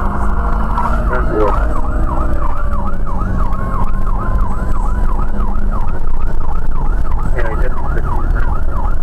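Whelen Alpha 12Q siren sounding from the responding car, changing from a slower wail to a fast yelp about a second in, sweeping up and down about three times a second. Steady engine and road noise underneath, heard from inside the car.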